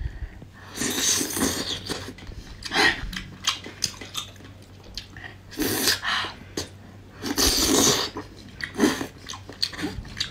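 A woman biting and chewing soft, sauce-coated seafood pulled off wooden skewers, close to the microphone. There are louder sucking bursts about a second in, around six seconds and around seven and a half seconds, with small wet clicks in between.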